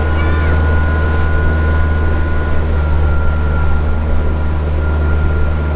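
Canal tour boat's motor running steadily, heard from on board: a strong low hum with a faint steady high tone above it and wash noise.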